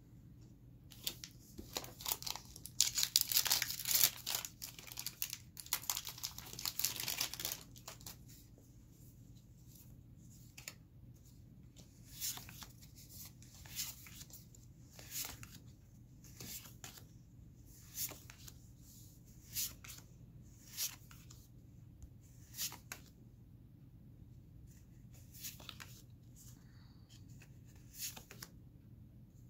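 Magic: The Gathering booster pack wrapper torn open and crinkled. Then the cards are flicked through one by one, a short snap about every second and a half.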